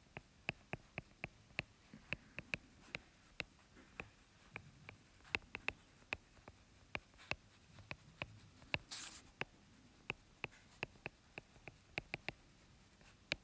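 Faint, irregular clicks of a stylus tip tapping on an iPad's glass screen during handwriting, about three a second, with a brief hiss about nine seconds in.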